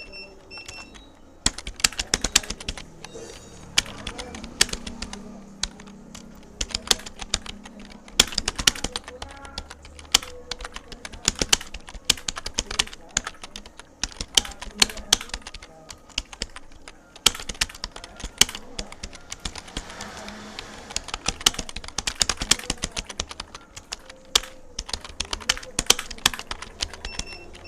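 Computer keyboard being typed on quickly and continuously, a fast uneven run of key clicks during a typing speed test at about 54 words per minute.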